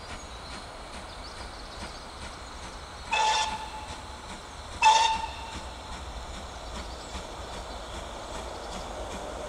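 Whistle of GWR Manor class 4-6-0 steam locomotive 7802 Bradley Manor, two short blasts about a second and a half apart, the second louder. Between and around them is the steady, fainter sound of the approaching train.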